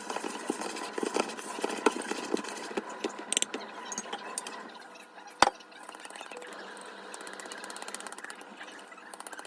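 Irregular clicks and knocks of things being handled, with one sharp click about five seconds in, then a small motor starting to run with a fast, steady buzz.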